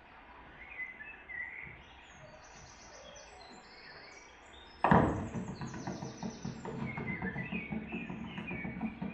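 Birds chirping in short calls. About five seconds in, music starts with a sudden loud hit and then a pulsing beat, the chirping continuing over it.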